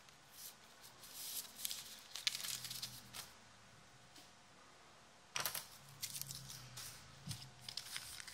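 Faint rustling and crinkling of foil trading-card pack wrappers being handled, in short scattered bursts with a quiet pause in the middle.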